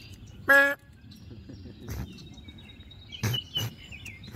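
Birds chirping over low outdoor background noise, with one short, loud pitched call about half a second in and a few sharp knocks later on.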